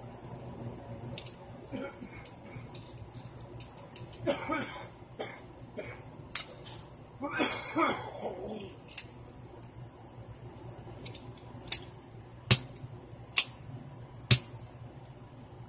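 Small plastic toy blaster being handled: scattered light plastic clicks, two short cough-like bursts from the person around the middle, then four sharp snaps about a second apart near the end.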